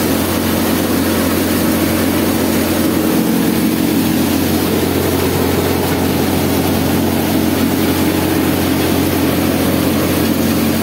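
Soybean thresher running steadily, driven by a Farmtrac tractor whose engine drones underneath it.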